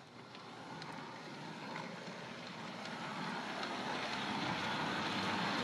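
A toy train set running along its track: a steady running noise that grows gradually louder, with a few faint clicks.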